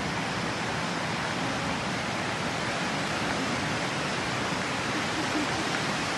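A steady, unbroken rushing hiss, even from low to high pitches.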